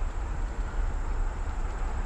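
Wind buffeting the microphone as a continuous, uneven low rumble over a steady outdoor hiss.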